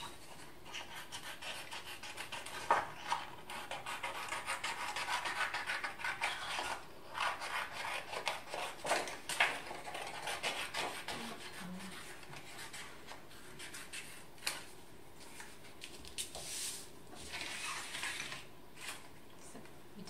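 Scissors cutting a circle out of a sheet of paper: a quick run of snips and rasping cuts, with the paper rubbing as it is turned.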